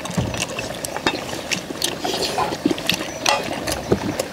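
Eating sounds: steel chopsticks and spoons clicking and scraping against stainless steel bowls and the stew pan, with chewing, as a run of irregular sharp clicks several times a second.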